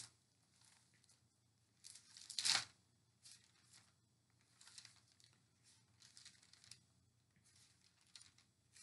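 Thin Bible pages being turned, a papery rustle. One louder flurry of page-turning comes about two seconds in, followed by softer scattered rustles.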